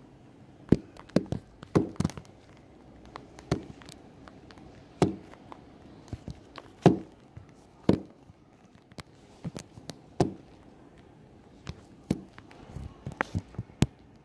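Hard plastic LOL Surprise toy packaging being handled and opened: irregular clicks, taps and knocks, a few sharper and louder than the rest.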